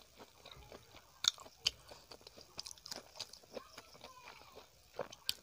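A person chewing a mouthful of food, with sharp wet clicks and smacks of the mouth: a few louder ones about a second in and again near the end.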